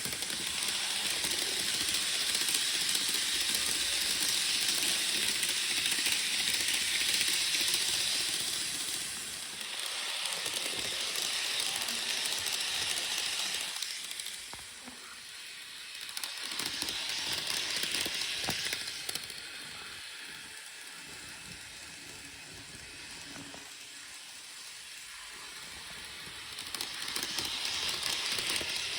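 Model train running on the layout track, a hissing rolling noise from its wheels and motor that swells and fades several times as it comes near and moves away.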